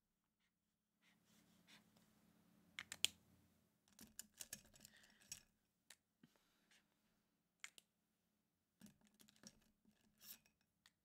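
Faint handling of pens and paper at a desk while colour-coding a planner: scattered sharp clicks and light scratching.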